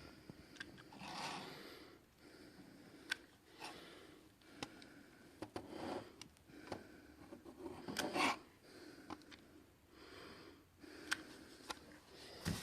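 Quiet handling noises while hot glue is dabbed into the corners of a miniature door frame: scattered small clicks and scrapes, with a few short breathy rustles.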